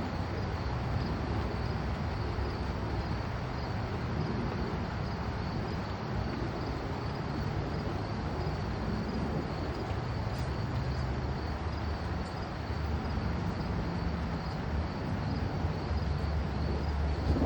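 Outdoor storm ambience: insects chirring steadily in a high band over a low rumble, which swells near the end as thunder builds.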